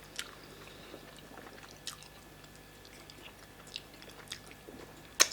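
Close eating sounds from fufu and vegetable soup: scattered wet mouth clicks and smacks of chewing, with one sharp, louder click near the end.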